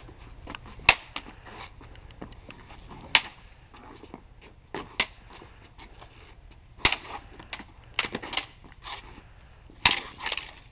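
Crutches clacking and knocking against each other as two people spar with them: scattered sharp hits, some single and some in quick flurries, the loudest about a second in, about three seconds in and near the end.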